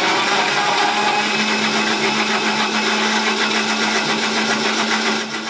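Electric blender running steadily, blending a banana, protein powder, dry fruit and milk shake, with a constant motor hum; it drops slightly in level near the end.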